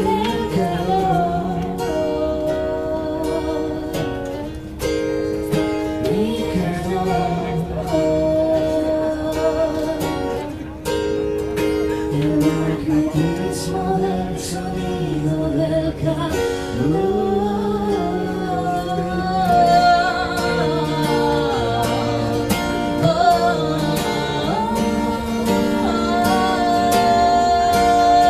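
Acoustic guitar playing with a singing voice, live.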